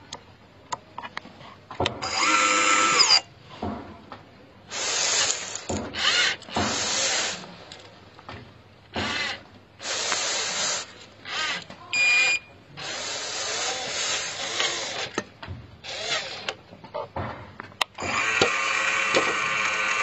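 A scale RC dump truck tipping gravel: its hydraulic tipper pump whirs in short stop-start bursts while gravel slides off the raised bed. It runs steadily for the last couple of seconds.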